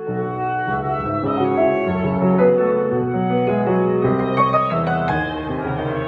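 Chamber quartet of flute, oboe, clarinet and piano playing classical music, the piano's busy runs over held wind notes; the music swells louder at the start.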